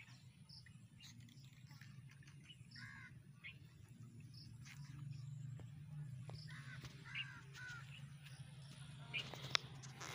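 Crows cawing several times, faint, with a few short high chirps in between, over a low steady hum.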